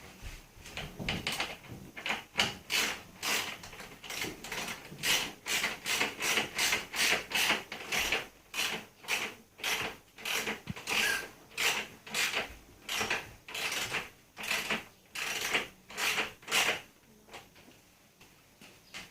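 Hand socket ratchet being worked back and forth, clicking in a steady rhythm of about two strokes a second as it tightens a bolt; it stops near the end.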